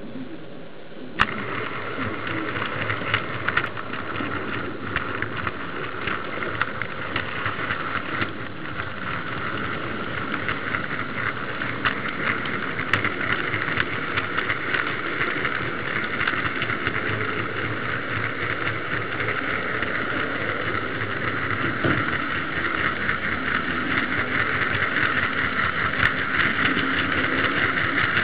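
H0-scale model tram and goods wagon rolling along the track, heard close up from a minicamera riding on the wagon: a steady running rattle of wheels on rails and a small motor, full of fine rapid clicks. It starts with a click about a second in and grows slowly louder.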